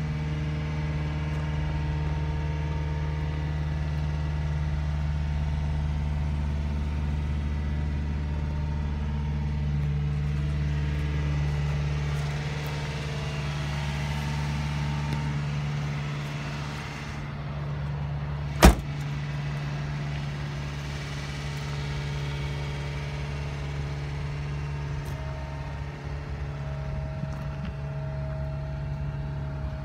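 Subaru Sambar kei truck's small four-cylinder engine idling steadily. About two-thirds of the way through, one sharp bang, the truck's door being shut, stands out above the idle.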